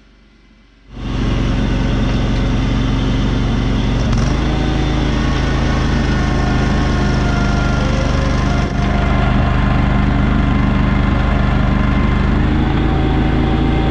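Compact tractor engine running steadily. It comes in suddenly about a second in, and its pitch steps up slightly around four seconds in and again near the end.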